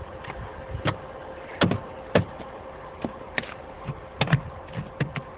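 Irregular knocks and crunches of packed snow being knocked and scraped by hand off a diesel locomotive's front end and coupler, a couple of hits each second, over a steady faint hum.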